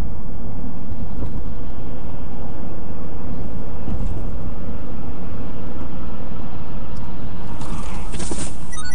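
Steady road and wind noise of a car cruising at highway speed, about 60 to 70 mph, heard from inside the cabin. There is a brief surge of hiss near the end.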